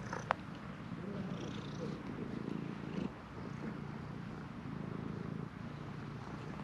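Orange-and-white cat purring steadily right by the microphone while being stroked. A single short sharp click sounds just after the start.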